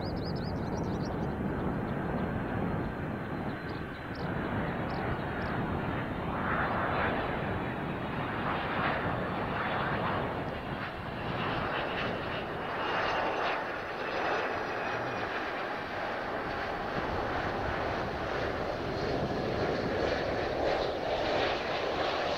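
Jet noise from a Kawasaki C-2 transport's two General Electric CF6 turbofans: a steady rush, with a whine that rises in pitch over the last few seconds.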